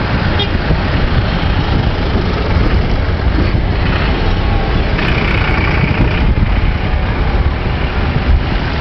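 Farm tractor engines running as a line of tractors, among them Massey Fergusons, drives past one after another. Wind rumbles on the microphone throughout.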